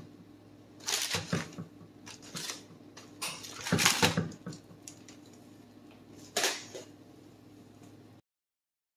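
Aluminium foil crinkling in several short bursts as it is peeled off a glass baking dish, loudest about four seconds in. The sound cuts off abruptly near the end.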